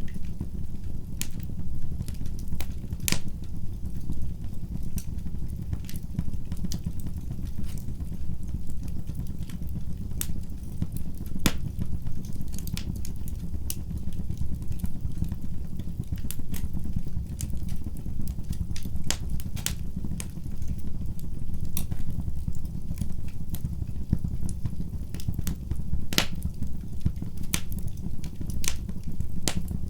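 Wood fire in a fireplace crackling: irregular sharp pops and snaps over a steady low rumble of the burning fire, with the loudest pops about 3 and 26 seconds in.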